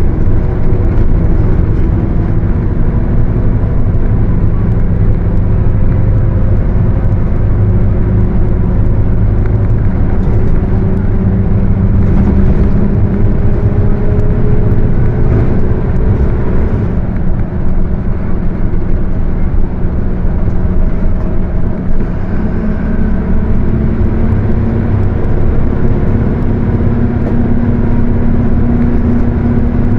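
Mercedes-Benz OF 1721 bus under way: the diesel engine runs with a growling differential, whose tone climbs slowly as the bus gathers speed, drops away about halfway through, then holds steady near the end.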